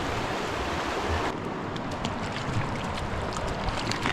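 Rushing mountain river water, a steady hiss; the higher part of the hiss drops off abruptly about a second in.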